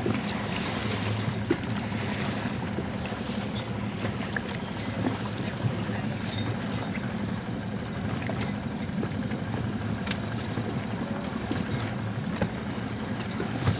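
Steady wind and water noise with a low rumble underneath and a few faint knocks.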